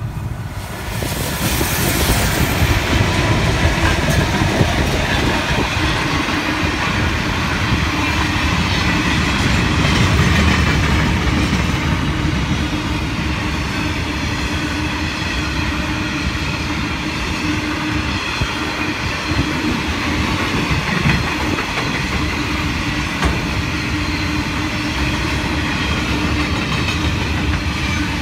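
Grain train passing close by. Its three diesel locomotives go by about a second in, then a long string of grain hopper wagons rolls past with a steady wheel rumble and clickety-clack on the rails.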